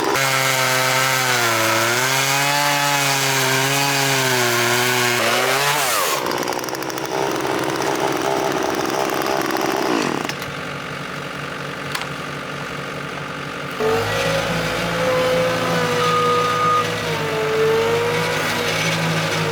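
Two-stroke chainsaw cutting at high revs, its pitch wavering under load, then dropping away with a falling pitch about six seconds in. Later an engine runs more steadily at a lower speed.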